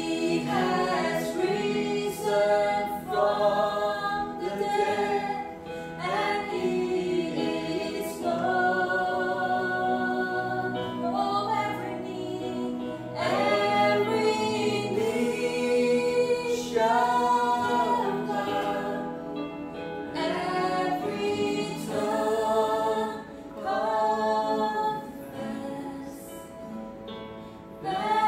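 Music: a worship song, voices singing held, flowing notes over a sustained accompaniment.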